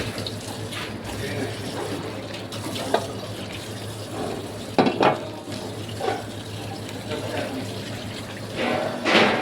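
Water running at a kitchen sink, with a steady low hum underneath. Several sharp clinks and knocks of utensils break through it, a loud pair about five seconds in and the loudest near the end.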